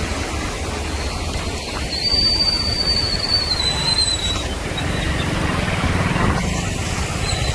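Muddy floodwater rushing across a street as a steady noise over a low rumble. A thin high whistle-like tone sounds for a couple of seconds, starting about two seconds in.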